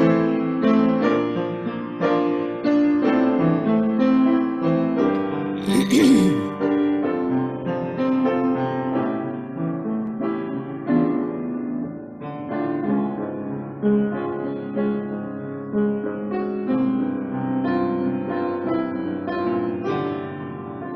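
Solo piano playing an instrumental song: sustained chords and melody notes. A brief sharp noise cuts in about six seconds in.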